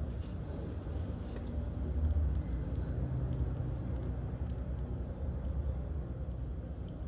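Steady low background rumble with a few faint small clicks.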